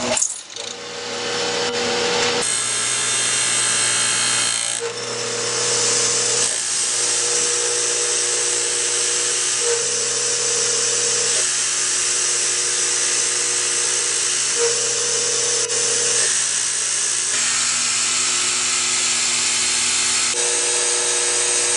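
Miniature cam grinder switched on, its grinding wheel spinning up over the first couple of seconds and then grinding a lobe into a 4130 steel camshaft as it follows the pattern. A steady, high hissing grind, with a hum that comes and goes every second or two.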